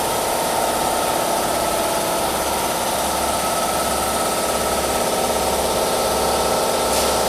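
Welding machine running steadily: a constant mechanical drone with a steady hum, neither rising nor falling.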